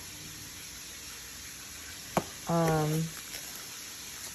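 Steady background hiss, broken a little over two seconds in by a single sharp click, followed by a brief hummed vocal sound lasting about half a second.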